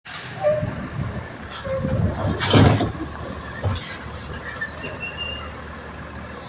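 Automated side-loader garbage truck running, its engine and hydraulic arm working as the arm lifts a trash cart to dump it. A loud burst of noise about two and a half seconds in stands out over the steady low rumble.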